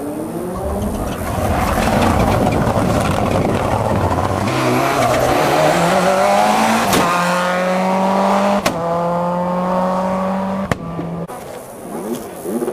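Rally car engine at full throttle on a hillclimb, its pitch rising in steps as it climbs through the gears. About seven and nine seconds in there are sharp cracks, and the engine note stops abruptly near the end.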